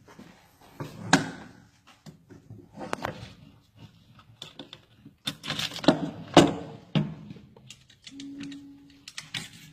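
An M4 carbine being handled and partly taken apart: a series of sharp metallic clicks and knocks, loudest and closest together about five to six and a half seconds in, with a short low hum a little past eight seconds.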